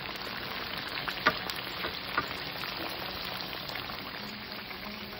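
Two whole red snappers shallow-frying in vegetable oil in a skillet just below medium heat: a steady crackling sizzle of oil bubbling around the fish. Two sharper clicks stand out, about a second in and again about a second later.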